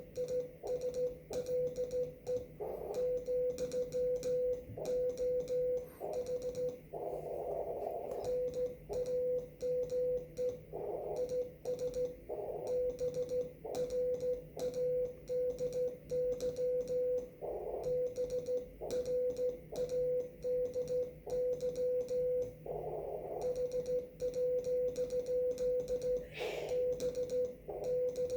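Morse code (CW) from a ham radio transceiver: a single tone of about 500 Hz keyed on and off in dots and dashes at a brisk, even pace, with a sharp click on each element. Short bursts of hissy noise rise around the tone now and then, over a faint low hum.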